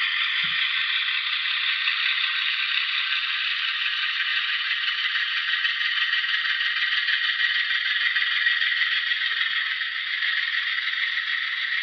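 Model train locomotives running along the track: a steady mechanical rattle and whir from their motors, gears and wheels on the rails.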